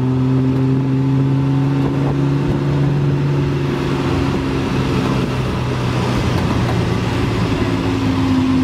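Tuk-tuk engine running, heard from inside the open-sided passenger compartment along with road and traffic noise. Its steady engine note drops away about halfway through and comes back near the end.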